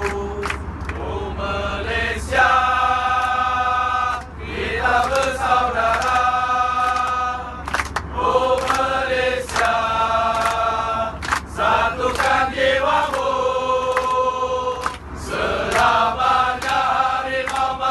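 A crowd of football supporters singing a chant in unison, in long held phrases with short breaks, with scattered hand claps. Inside an airliner cabin, with a steady low hum underneath.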